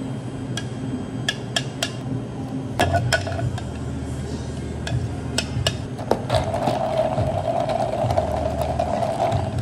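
Ice cubes and a metal bar spoon clinking in a tall plastic cup as an iced café mocha is poured and stirred: a run of sharp clinks. About six seconds in, a steady scraping rustle takes over while a plastic dome lid is fitted onto the cup.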